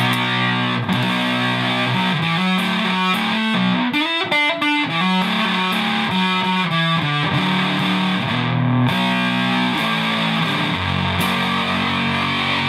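Electric guitar on its neck single-coil pickup played through an Analogman Sun Bender MK1.5 fuzz pedal, its two Mullard OC72 germanium transistors giving a thick, sustaining fuzz. Mostly held notes, with a quicker run of notes about four seconds in.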